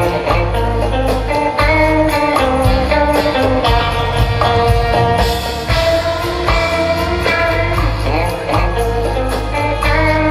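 Live rock band playing loudly, with piano, keyboards, guitars, bass and drums, heard from the audience over a concert PA.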